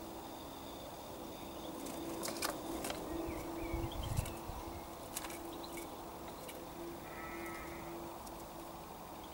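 Small light clicks and crinkles of a European robin hopping about on plastic bags of firewood in a garden storage box, with a short burst of its wingbeats close to the microphone about four seconds in. A steady low drone sits underneath.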